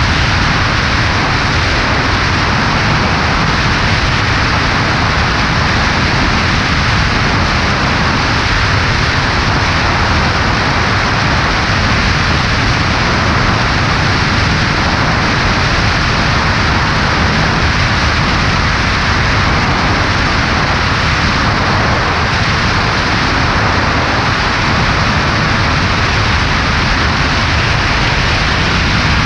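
Steady rush of airflow with the engine drone underneath, from a Cessna 140A single-engine light plane in flight, heard through a microphone on the left wing.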